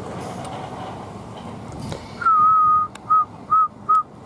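An electric train rolls away. Then a loud whistled note starts about two seconds in: one long note, then a string of short notes at the same pitch about every half second.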